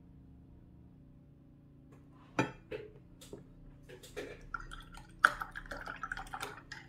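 Watercolour brush clinking against a glass water jar as it is rinsed: after a quiet couple of seconds, a few sharp clinks, then a quicker run of clinking and light rattling.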